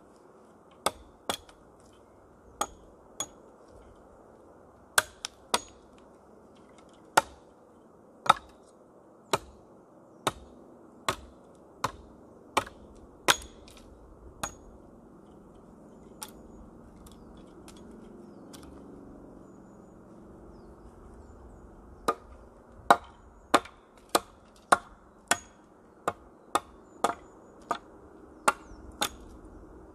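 Small hatchet chopping into a thin wooden pole: sharp single strikes about once a second, then a pause of several seconds midway, then a quicker run of strikes.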